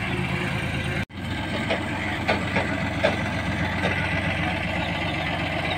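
Diesel engine of a 12-tonne hydra crane running steadily, with a few faint knocks over it. The sound cuts out for an instant about a second in.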